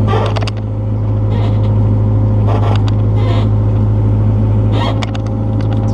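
Excavator's diesel engine running steadily, with short rattles and scrapes from the machine working a few times along the way.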